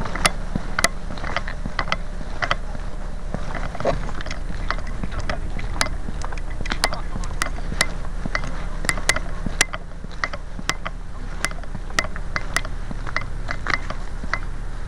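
Handling noise from a gun-mounted camera carried on the move: irregular sharp clicks and rattles, about one or two a second, over a steady low rumble.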